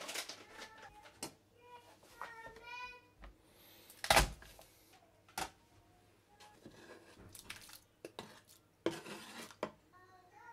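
Kitchen utensils and dishes clinking while a marinade is made: scattered clicks and knocks of a metal spoon and bowl on a counter, the loudest knock about four seconds in, and a short rushing scrape near the end.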